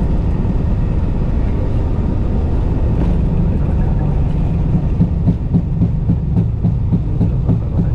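Airbus A320 rolling out on the runway just after touchdown, heard in the cockpit: a loud, steady low rumble, with a run of uneven thumps from about five seconds in.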